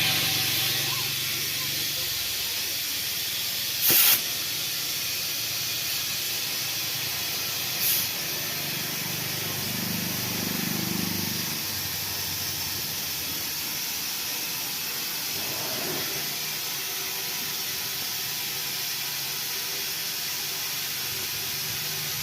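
Compressed air hissing steadily at a tractor tyre, with two short louder spurts about 4 and 8 seconds in.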